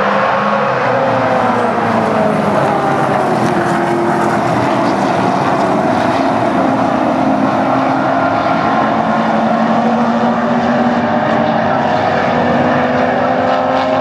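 A pack of classic touring cars, mostly V8 muscle cars, racing past together: many engines running at once in a loud, steady drone, their pitches sliding up and down as the cars pass and change speed.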